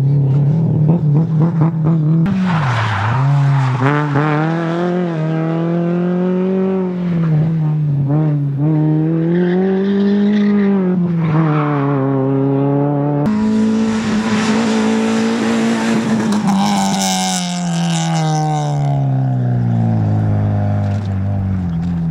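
Rally car engine at full attack, its pitch climbing and dropping again and again through gear changes and lifts, with stretches of tyre noise as the car slides. About two-thirds through the sound changes abruptly to another engine note, which then falls away steadily.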